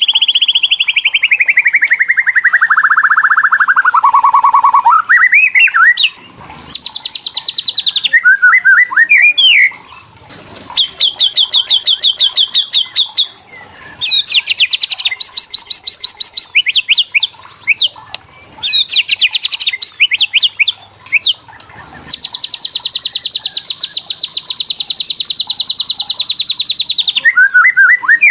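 White-rumped shama giving its rattling 'kretekan' calls, the agitated call used to provoke other shamas. It makes long runs of very fast repeated notes: the first slides steadily down in pitch over about five seconds. Then come several high, even trills with short breaks between them, the longest running about five seconds near the end.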